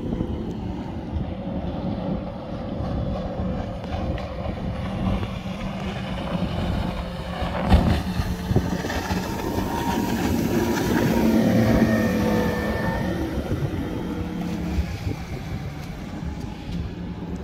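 Motorboat engine running at speed across open water, with wind on the microphone. The engine note shifts in pitch and grows louder past the middle, and there is one sharp knock a little before halfway.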